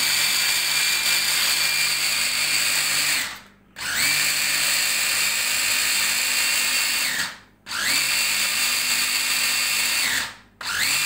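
Tefal hand blender on its chopper bowl attachment grinding chickpeas into hummus paste, pulsed in runs of about three seconds. The motor whines up at each start and winds down at each of three short pauses.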